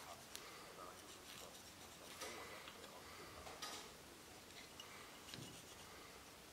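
Faint scratching of a white marking pencil drawn across a wrought iron axe blank, with a few light ticks as it touches the metal.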